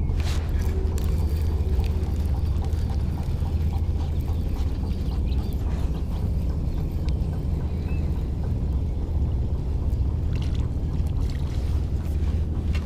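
Steady low rumble with light water splashing around a sit-on-top kayak, and scattered clicks from a spinning reel as a small spotted bay bass is reeled up to the boat.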